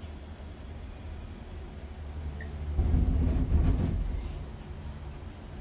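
Low rumble of a moving vehicle, swelling louder for about a second and a half in the middle, with a steady high insect chirr over it.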